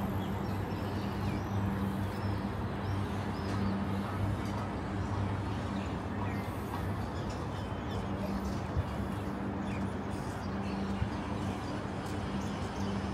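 Outdoor city ambience: a steady low mechanical hum under an even wash of background noise, with a few faint, short high chirps.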